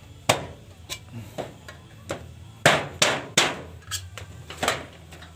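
A nail being struck into the tin lid of a thinner can to punch holes in it: about nine sharp taps at an uneven pace, the loudest a little under three seconds in.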